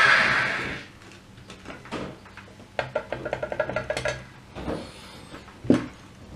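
Modern M-2600 L circular saw's motor winding down after being switched off, its noise fading out within the first second. Then a few light knocks and clicks of handling, with a sharper knock near the end.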